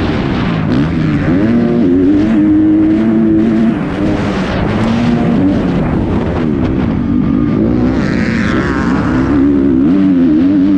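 Kawasaki motocross bike engine racing flat out, its pitch rising and falling repeatedly as the rider works the throttle and gears, heard from a helmet camera with wind rushing over the microphone. A higher, wavering whine comes in briefly about eight seconds in.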